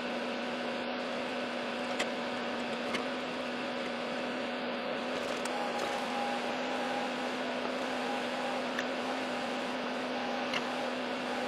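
Steady machine whir with a constant low hum, like a small fan running, with a few faint clicks.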